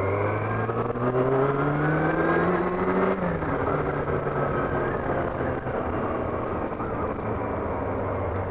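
Yamaha R6 sportbike's inline-four engine accelerating, its pitch rising for about three seconds, then falling back and running steadier, with wind noise on the helmet mic.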